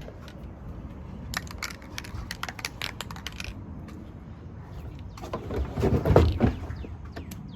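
Plastic HVAC box parts being handled: a run of light clicks and taps, then louder knocking and crunching of plastic about five to six seconds in.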